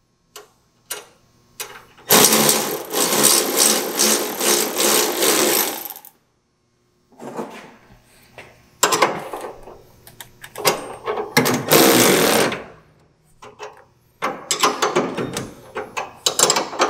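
Milwaukee cordless ratchet running in bursts, tightening the tie rod end nut at the spindle. There is one run of about four seconds early on, then three shorter bursts with gaps between them.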